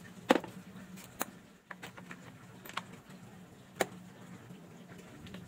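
Four sharp, separate clicks of a socket wrench and metal screws against the motorcycle's plastic fairing as the side-cover screws are taken out; the first click is the loudest.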